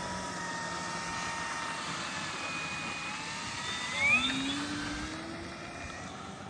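Electric motor and propeller of an FMS P-47 Razorback radio-control warbird whining steadily, the pitch rising sharply about four seconds in at its loudest, then fading.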